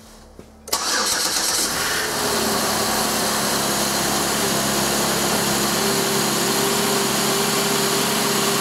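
A 2006 Pontiac G6 GTP's 3.9L V6 starts from cold, catching suddenly under a second in and settling into a steady fast idle of around 1,400 rpm, with the coolant still at 53°F.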